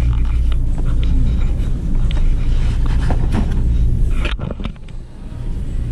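Metal shopping cart rolling across a hard store floor, its wheels rumbling and the wire basket rattling. The rumble stops briefly after a clatter about four seconds in, then starts again.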